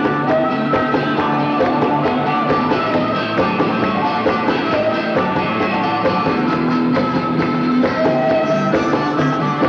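Live rock band playing with electric guitar and a harmonica blown into a cupped hand-held vocal microphone, sounding held notes over the band.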